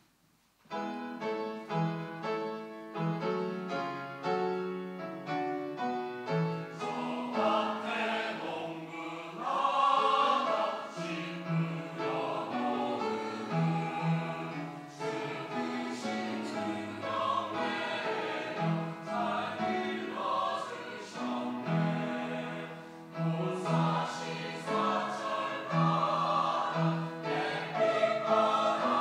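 Church choir singing an anthem with accompaniment. A short instrumental introduction of separate, evenly paced notes starts under a second in, and the choir comes in about seven seconds in.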